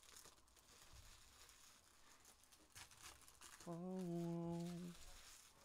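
Faint crinkling and rustling of trading-card pack wrappers and cards being handled. A little past halfway, a person's voice hums one steady note for about a second.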